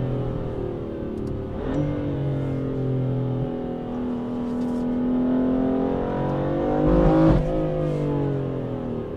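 Twin-turbo six-cylinder performance car engine revving and accelerating, its pitch gliding up and down. There is a sharp change in engine note with a crack about two seconds in, and a louder surge and change near seven seconds.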